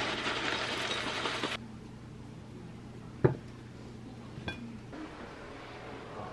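Granola pouring from a bag into a ceramic bowl, a dense rattling hiss that stops suddenly about a second and a half in. Then two sharp clinks of dishes, about three and four and a half seconds in, the second ringing briefly.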